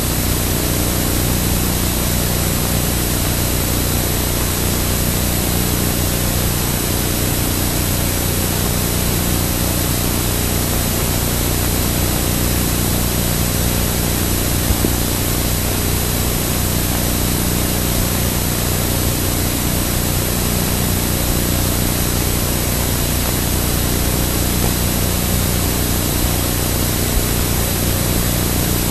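A steady, unbroken engine-like drone with a low hum, holding one level throughout.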